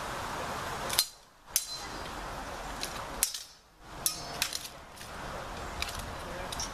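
Steel swords clashing in a HEMA bout: sharp metallic clangs, the loudest about one and three seconds in, each with a short ring, then a quick run of smaller knocks around four to five seconds in.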